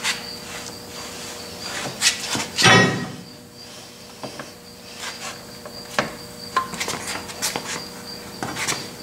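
Cast-iron saddle of a Logan lathe sliding along the bed ways and being lifted off: metal scraping with scattered clicks and knocks, and one louder, short squealing scrape nearly three seconds in.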